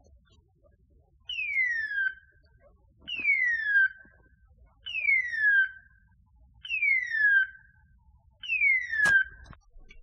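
Electronic beeper collar on a hunting setter, sounding its hawk-scream call: five identical falling whistles, each under a second, repeating about every two seconds. This fast, steady repeat is the pattern beeper collars use in point mode, when the dog has stopped on point. A single sharp knock comes near the end.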